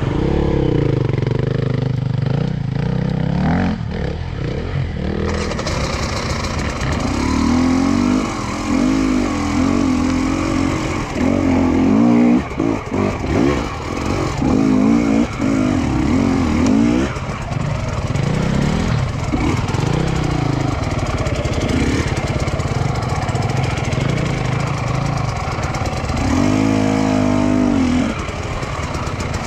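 Enduro dirt bike engines revving under throttle on a climb, the pitch rising and falling again and again as the throttle is worked.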